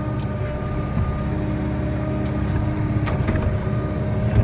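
Excavator's diesel engine running steadily under hydraulic work while digging and moving dirt, with a few short knocks at about one second in, three seconds in and near the end.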